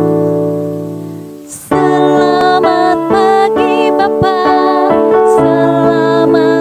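An electric keyboard chord dies away. About two seconds in, a voice starts singing a children's praise song over electric keyboard accompaniment.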